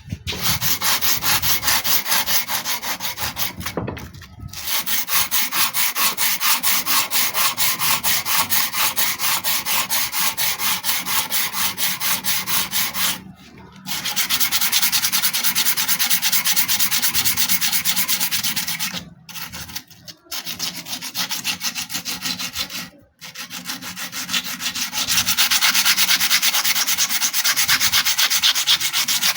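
Abrasive sanding of a rusty steel knife blade in rapid, even back-and-forth strokes, stopping briefly a few times between runs.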